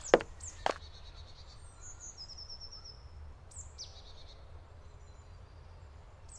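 Forest ambience: small songbirds calling in thin, high phrases, with a short trill about two seconds in, over a low steady rumble. Two sharp knocks in the first second.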